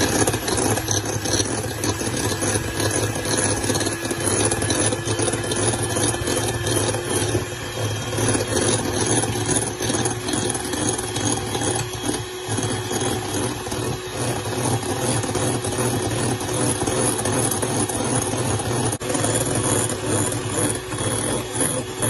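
Electric hand mixer running steadily, its twin beaters whipping instant coffee, sugar and hot water in a glass bowl into dalgona coffee foam.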